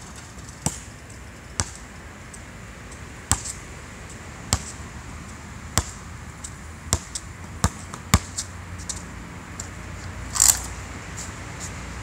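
Basketball bouncing on an outdoor asphalt court: single sharp bounces about a second apart, coming quicker around seven to eight seconds in. About ten and a half seconds in comes one louder, longer crash, the loudest sound here.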